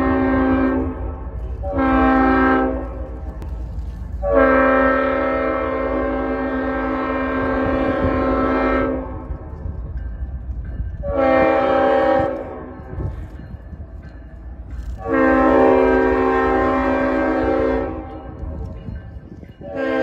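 Leslie RS5T five-chime locomotive air horn sounding a series of blasts for a grade crossing: a long blast ending just after the start, a short one, a long one of about four seconds, another short one, another long one, and a fresh blast beginning at the very end. A steady low rumble from the approaching train runs underneath.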